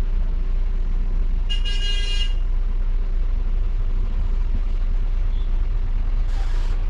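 Volvo B9R coach's rear-mounted diesel engine running steadily, heard as a low rumble from the driver's cab. About a second and a half in, a horn sounds once briefly, and near the end there is a short hiss.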